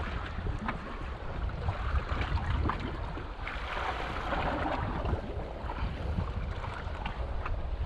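Wind buffeting the microphone and choppy sea water splashing against the hull of a speedboat, with a louder wash of water about halfway through.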